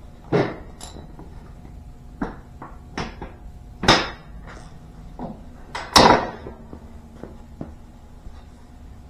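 A series of separate knocks and clanks of metal tools and parts being handled, about six in all, the loudest about four and six seconds in, over a low steady hum.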